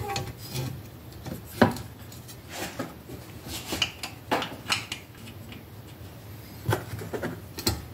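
Exhaust pipe of a Yamaha PW50 being pushed into place against the frame and engine: scattered metal clinks, taps and rubbing, with the sharpest knocks about one and a half seconds in and again near the end.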